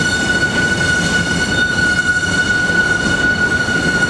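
Freight train of boxcars rolling past, a steady rumble of wheels on rail, with a steady high-pitched whine over it.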